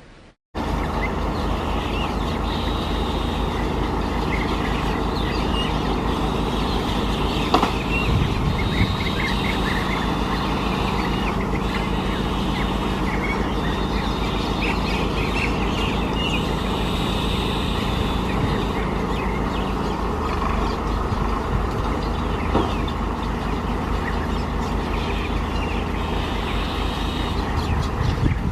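An engine running steadily with a low pulsing hum that shifts slightly about twenty seconds in, while birds chirp over it.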